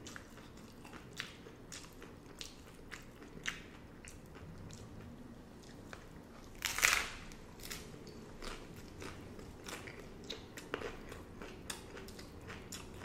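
Crunching of hard-shell beef tacos being bitten and chewed: a run of short, crisp crunches with a louder, longer crunching bite about halfway through.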